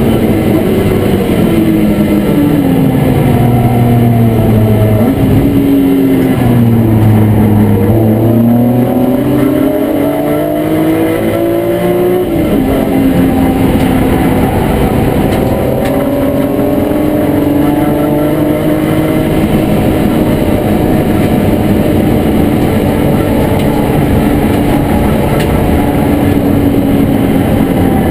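E36 BMW M3 race car's straight-six engine heard from inside its stripped cabin under hard track driving. The revs fall over the first several seconds as the car slows for a corner, climb again, drop sharply on an upshift about 12 s in, then hold fairly steady before falling near the end.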